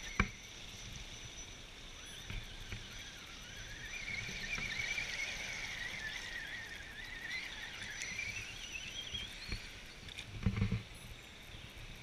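Electric motor and gearbox of an Axial Wraith RC rock crawler whining as it drives through a shallow stream over water splashing. The whine's pitch wavers with the throttle and rises near the end. A sharp click comes right at the start, and a couple of low thumps about ten and a half seconds in.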